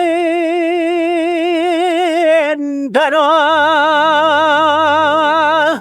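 Music: a voice holds one long note with a wide, even vibrato over soft low accompaniment. It breaks off briefly about two and a half seconds in, then a second long vibrato note begins with a quick dip in pitch and cuts off at the end.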